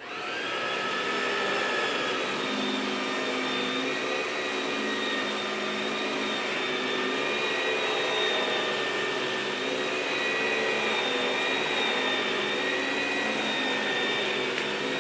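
Toy vacuum cleaner motor running steadily: a whirring hiss with a high, even whine over it.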